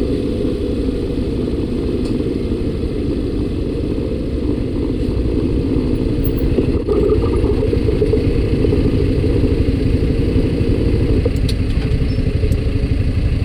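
Suzuki Burgman Street EX scooter's 125 cc single-cylinder engine running as it rides, mixed with road and wind noise. The sound gets louder about seven seconds in.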